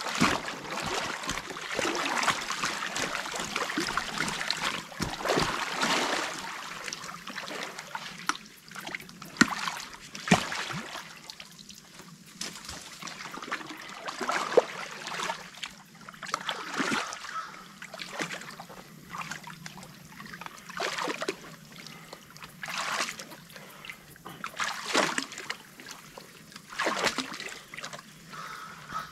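Water trickling and splashing as a beaver pond drains through a breach in the dam, with splashes coming every couple of seconds over the steady flow.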